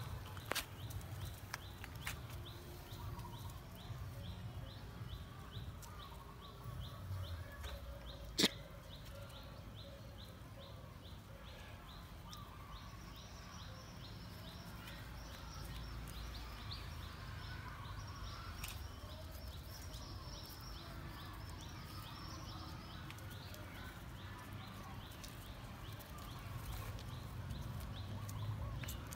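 Quiet outdoor ambience: a steady high-pitched chirping that repeats about two or three times a second for most of the stretch, over a low rumble, with one sharp click about eight seconds in.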